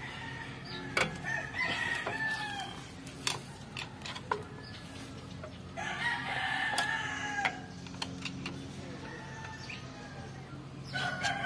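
A rooster crowing, three calls of a second or two each, the last starting near the end, over a steady low hum. A few sharp metallic clicks come between the calls, from hand tools on the drum-brake shoes and springs.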